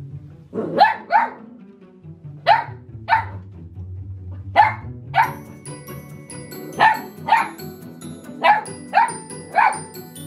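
Miniature goldendoodle puppy play-barking at a new bell toy: about a dozen short, sharp barks in twos and threes, roughly half a second apart. Background music runs underneath.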